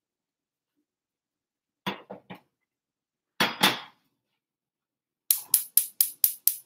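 Cookware knocking on a gas stovetop as a saucepan is moved onto a burner, then the gas burner's spark igniter clicking rapidly: six sharp clicks, about four a second, as the burner is lit.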